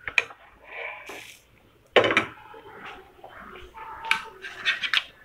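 Steel spatula knocking and scraping against a frying pan and a plate while a fried chila is lifted out and set down, with a sharp clack about two seconds in and a few quick clicks near the end.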